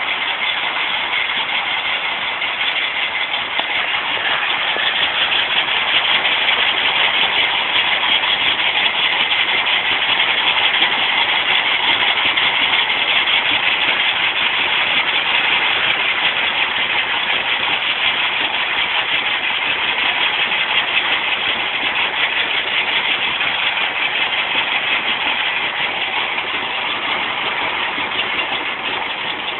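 Stone crusher machine running steadily, a loud continuous mechanical din of its engine and crushing works.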